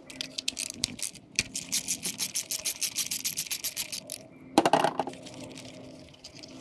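A 1/4-inch socket ratchet clicking rapidly as it turns a 10mm nut on the engine's wire harness bracket. The clicking stops about four seconds in, and a louder knock follows half a second later.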